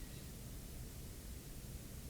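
Faint steady background hiss with a low hum: room tone, nothing happening.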